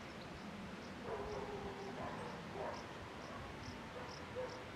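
Faint outdoor background with a distant animal calling a few times and a faint high chirp repeating about twice a second.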